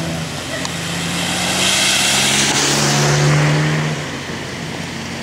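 A car driving past on a wet road: tyre hiss and engine hum swell to a peak about three seconds in, the hum's pitch dropping slightly as it passes, then fade away.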